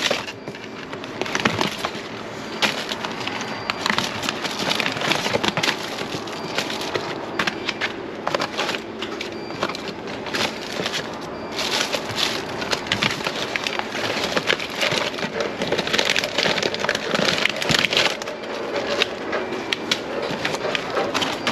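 Plastic food packaging and cardboard crinkling, crackling and clicking as hands rummage through packaged groceries inside a plastic wheelie bin, a continuous run of small crackles and knocks.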